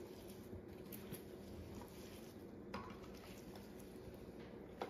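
Faint rustling and squishing of a bare hand tossing oiled potato slices, sausage rounds and peppers in a glass baking dish, with a couple of light clicks.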